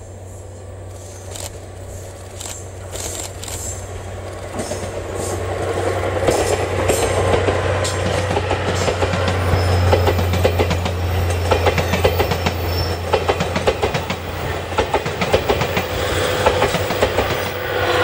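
A JNR Class DE10 diesel-hydraulic locomotive passes with a steady low engine hum. Its train of 12-series passenger coaches follows, the wheels clicking rhythmically over rail joints, getting louder from about six seconds in as the coaches go by.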